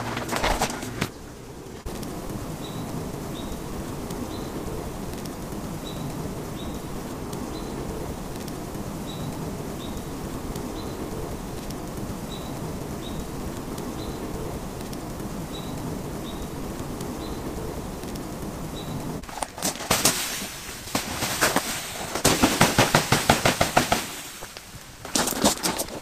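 Footsteps crunching through fresh snow, loudest between about 20 and 24 seconds in and again near the end. Before them comes a long stretch of steady outdoor hiss with faint high chirps, often in pairs. It opens with a second or so of gear being handled and set down.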